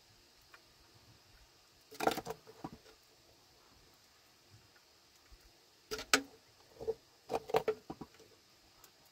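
Short clatters and knocks of objects being handled: one cluster about two seconds in, and a longer run of sharp knocks from about six to eight seconds in, against a quiet background.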